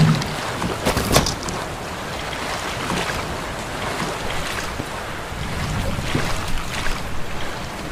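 Steady rush of heavy rain and falling water, with a few sharp splashes or knocks about a second in.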